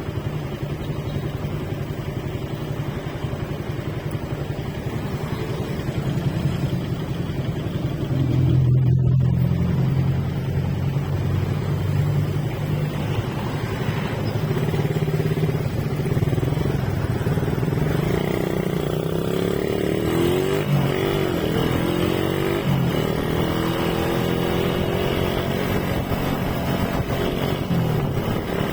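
Motorcycle engine running under way while riding. Its pitch rises and falls with the throttle, most clearly around two-thirds of the way through, and it gets louder about a third of the way in.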